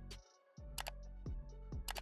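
Quiet background music with a steady beat and sharp ticks, cutting out briefly just after the start.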